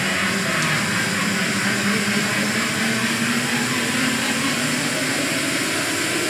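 Loud music playing steadily, heard as a dense, noisy wash.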